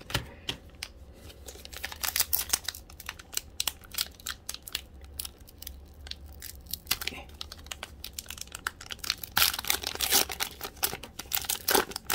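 Foil wrapper of an Upper Deck hockey card pack being torn open and crinkled by hand: a dense run of crackles, with a louder burst near the end.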